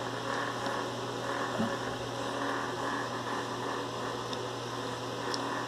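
Steady background hum and hiss of room tone, with a faint click about one and a half seconds in.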